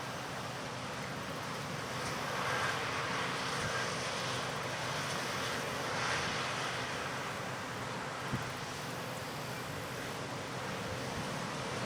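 Amadas self-propelled peanut combine working in the field at a distance, a steady even rushing noise that swells a little a couple of times, with wind on the microphone.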